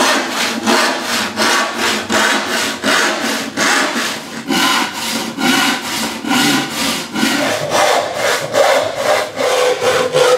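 Handsaw rip-cutting a board along the grain in brisk, even push strokes, about two to three a second.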